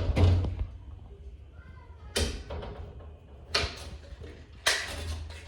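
A window being opened by hand: a handling rumble, then three sharp knocks or clacks of the latch and frame as it slides open.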